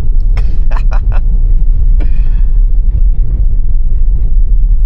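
Steady low rumble of a Tesla sliding and spinning on snow, the tyres and car body rumbling over the snowy surface. A few short knocks come about half a second to a second in, and a brief higher sound about two seconds in.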